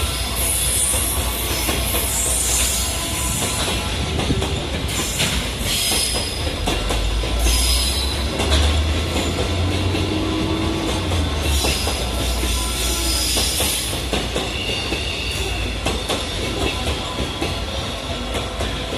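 An EF210-hauled freight train rolling past with a steady low rumble, its wagon wheels clacking over the rail joints and squealing on the rails, most sharply in the first few seconds.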